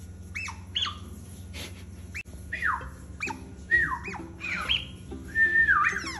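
Plush mouse toy whistling: a string of short whistled notes that slide down and up, coming faster and turning into a little tune toward the end.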